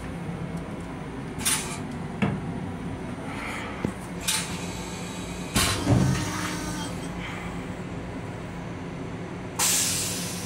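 Steady hum inside the restroom of an LIRR M7 electric railcar, broken by several short hissing spurts and a clunk about six seconds in, with the longest hiss near the end.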